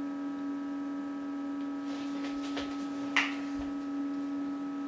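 Steady electrical hum from the running Agilent 54621A oscilloscope, one low tone with fainter higher overtones, and a single light click about three seconds in.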